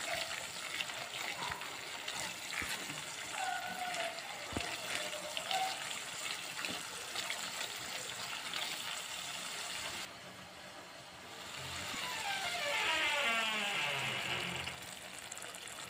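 Onion-spice paste sizzling in oil in a non-stick pan, with a spatula stirring and scraping through it. About twelve seconds in, a milky liquid is poured in from a bowl, a gushing pour of a few seconds.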